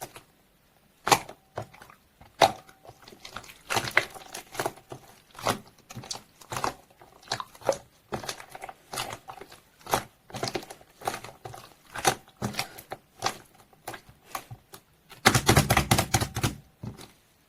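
Slime being squeezed and pressed by hand, giving irregular sticky pops and clicks, with a dense run of crackling near the end.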